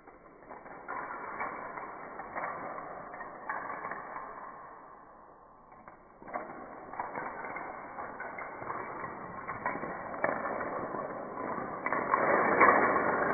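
A long line of dominoes toppling in a chain reaction on a hard floor: a fast, continuous clatter of clicks that eases off briefly about five seconds in, then picks up again and grows louder near the end.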